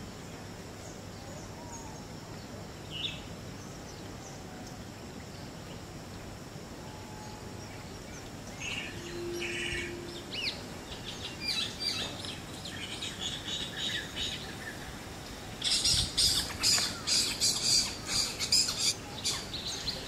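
Spotted owlets calling. After a single short note, high calls start about halfway through, then a loud, rapid series of high, screechy notes, several a second, over the last few seconds.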